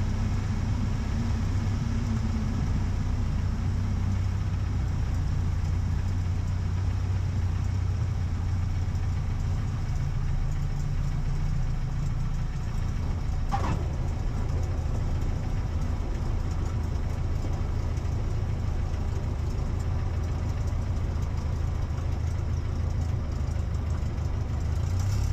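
Aeronca Chief's small four-cylinder Continental engine running steadily at reduced power on final approach, a low even drone heard from inside the cockpit, with carburettor heat on. A single short click about halfway through.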